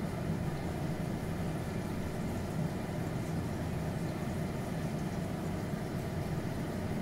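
A steady low hum and rumble of a running machine, holding even throughout.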